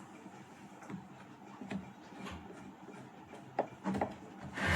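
Scattered light clicks and knocks of a home theatre unit's parts being handled and fitted together by hand, coming more often and louder near the end.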